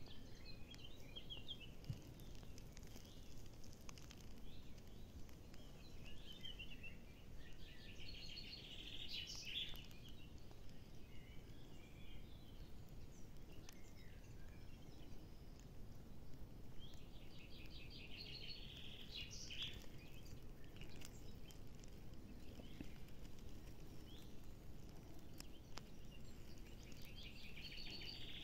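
Faint outdoor ambience: a songbird sings four short trilled phrases spaced through the stretch, over a low steady rumble.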